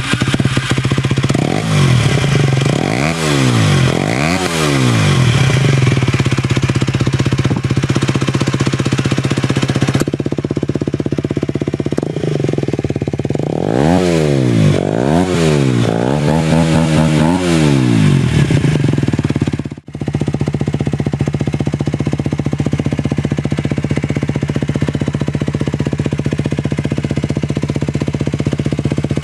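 Aprilia RS4 125's single-cylinder four-stroke engine idling through a LeoVince One Carbon aftermarket exhaust. It is blipped up and back down a few times twice, then settles back to a steady idle, with a short break partway through.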